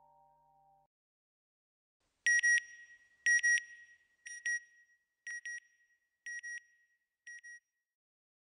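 Soft music fades out about a second in. Then come six short electronic double-beeps about a second apart, a high steady pitch like a satellite signal, the first two loudest and the rest fainter.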